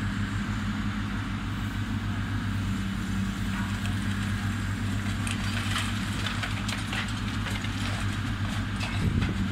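Hydraulic excavator's diesel engine running steadily under load while its demolition grapple works a collapsed, fire-damaged roof. Scattered sharp cracks and snaps of breaking debris begin about four seconds in.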